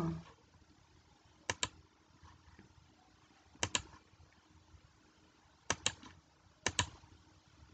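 Computer keyboard keys clicking: four short double clicks spaced one to two seconds apart, each a sharp tap-tap.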